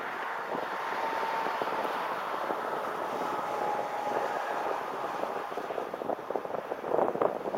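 Wind rushing over the microphone of a car-roof-mounted camera, with tyre and road noise as the car drives along. A faint whistle wavers through the first half, and rough buffeting crackles come in near the end.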